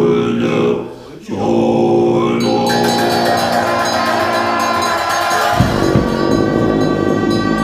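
Tibetan Buddhist monks chanting in sustained low voices; about two and a half seconds in, shrill gyaling horns and clashing cymbals join, and a deep low drone from the long dungchen horns comes in near the end.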